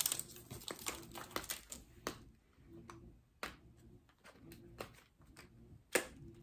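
Fingers picking at the packaging of a small cardboard box, making scattered crinkles and short clicks, with a sharp click at the start and another near the end.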